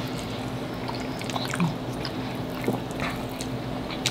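Close-miked eating sounds: wet chewing and mouth noises, with a few faint clicks of forks against the plate, over a steady low hum.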